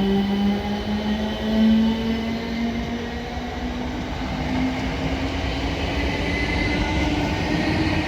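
A double set of Class 455 electric multiple units pulling away from the platform, its traction motors whining in several tones that climb slowly in pitch as the train gathers speed, over steady wheel noise on the rails.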